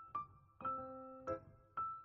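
Background music: a sparse keyboard melody of single ringing notes, about four in two seconds, each fading out before the next.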